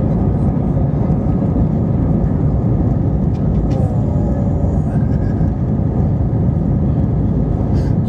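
Steady cabin roar of an Airbus A320-family jet airliner, engines and rushing airflow heard from a window seat during the climb after takeoff.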